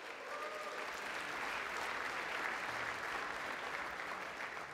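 Crowd applauding: many people clapping steadily, easing off slightly near the end.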